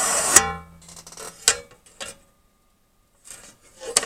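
Sheet-metal top cover of a power supply case being taken off: a scrape ending in a ringing metal clank about half a second in, then a few light knocks and more handling of the metal near the end.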